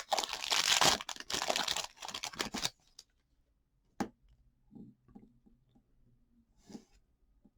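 Football trading-card pack wrapper being torn open and crinkled for the first two and a half seconds or so. Then a single sharp click about four seconds in and faint handling of the cards.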